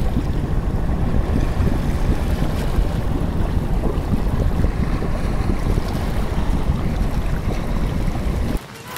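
Steady rushing underwater water noise with a heavy low rumble, cutting off suddenly near the end.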